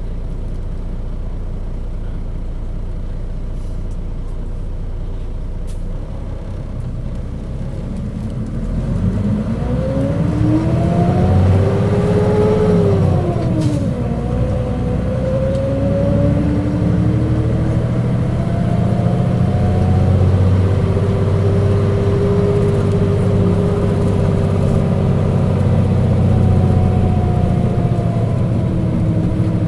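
Mitsubishi Fuso KC-MP617K city bus running, with a low rumble for the first several seconds. About eight seconds in it pulls away: a whine climbs in pitch, drops suddenly around fourteen seconds in as the gear changes, then rises again and holds steady while the bus cruises. The whine is an abnormal noise, far from the model's original sound, which the uploader suspects comes from some fault or trouble.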